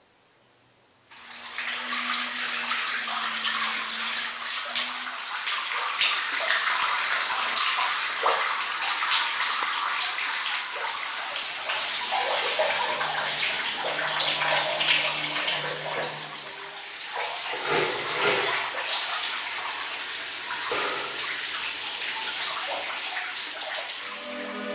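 Falling water pouring down in a dense, steady rush, starting abruptly about a second in after near silence.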